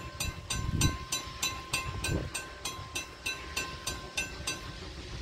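Railroad grade-crossing warning bell ringing in rapid, even strikes, about three to four a second, then stopping near the end as the crossing gate arm settles down. A low rumble runs underneath.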